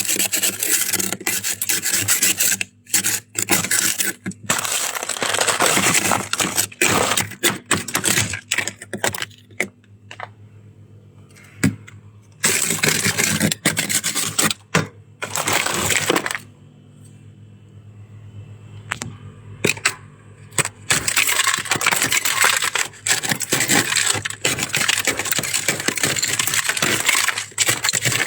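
Close-miked crunching and chewing of soft, crispy freezer-frost shaved ice: dense crackling, broken twice by brief pauses.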